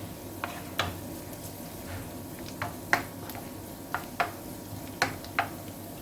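Kitchen utensils clinking against dishes, in about four pairs of sharp taps, over a steady low background noise.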